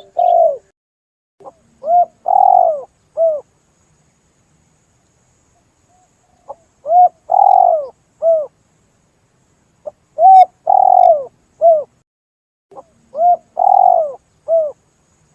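Spotted dove (tekukur) cooing, played as a lure call: a repeated three-part coo phrase, a short lead note, a longer drawn note and a short closing note. The phrase sounds four times with a few seconds' pause between.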